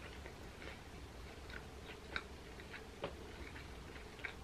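Faint chewing of a bao bun with deep-fried chicken and mayo: a scattering of small mouth clicks over a low steady hum.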